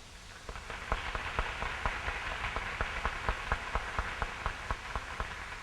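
Audience applause: one nearby clapper's sharp claps, about four a second, over the steady hiss of a crowd clapping.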